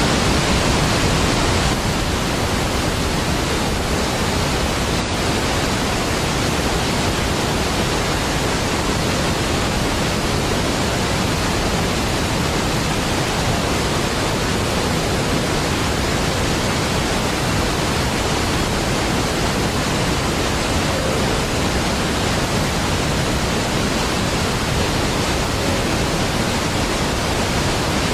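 Niagara Falls, a large waterfall, pouring with a steady, deep, unbroken rush of water.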